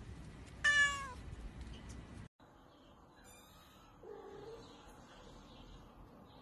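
A cat meows once, a short call falling slightly in pitch, about a second in. Fainter, shorter mews follow later.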